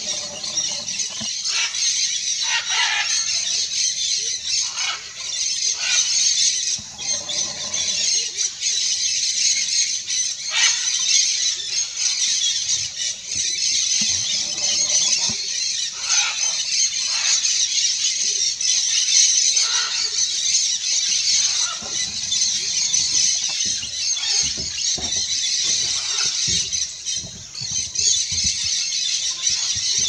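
Large flock of dusky-headed parakeets calling together: a dense, continuous chorus of shrill, high-pitched screeches and chatter.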